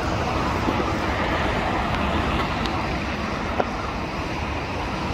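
Steady roar of a Lufthansa Boeing 747's jet engines as the airliner taxis, blended with the constant rumble of road traffic.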